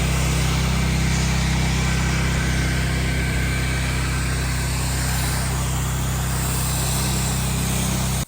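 Gas-powered pressure washer's engine running steadily, with a steady hiss over it.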